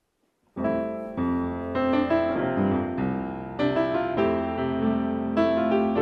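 Instrumental music begins about half a second in: a run of struck chords, each ringing on under the next.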